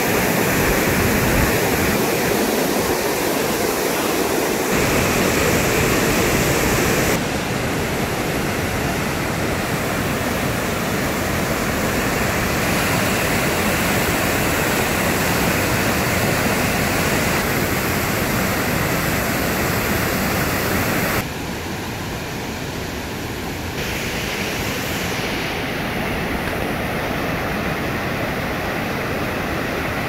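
Rushing water of a stream swollen by typhoon rain, a loud, steady roar of flowing water. Its level and tone shift abruptly several times.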